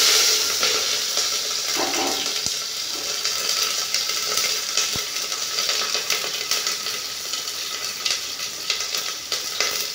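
Sliced onions and potatoes sizzling in hot oil in an aluminium pressure cooker. The sizzle is loudest at the very start, just after they go in, then settles to a steady frying hiss with small crackles.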